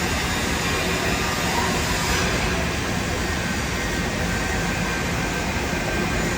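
Steady hiss and hum of argon TIG welding on a steel pipe joint, mixed with the running noise of the welding workshop. The highest part of the hiss thins out about two seconds in.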